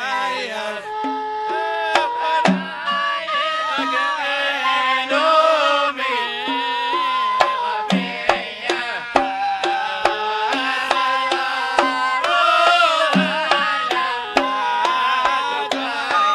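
Live Arabic wedding band playing a sawt piece: a sustained, sliding melody line over a steady pattern of hand-drum strikes.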